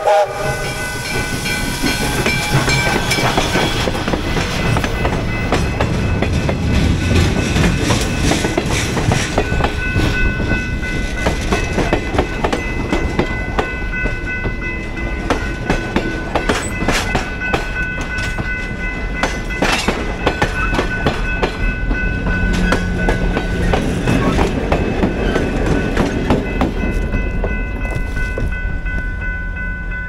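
Steam-hauled passenger train rolling past over a grade crossing: a steady rumble with many sharp wheel clicks as the cars pass. A steam whistle cuts off at the very start, and steady high ringing tones sound over the rumble, growing stronger near the end.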